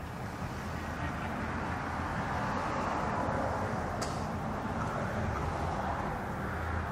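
Steady outdoor background noise: a rushing sound with a low hum under it, swelling over the first few seconds and then holding, with a faint click about four seconds in.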